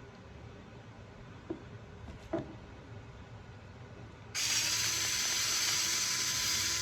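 A couple of light clicks from small parts being handled, then about four seconds in a small electric screwdriver starts suddenly and runs steadily, driving a circuit-board mounting screw home.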